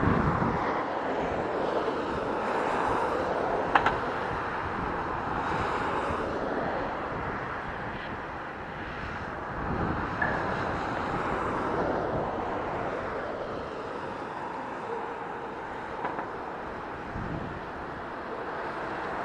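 Jet engines of an Airbus A320neo (CFM LEAP-1A) on approach to land: a steady rushing noise, with an occasional faint click.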